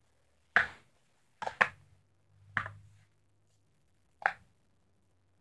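Plastic sport-stacking cups (Speed Stacks) clacking as they are stacked and set down: about five short, sharp clacks, two of them in quick succession about a second and a half in.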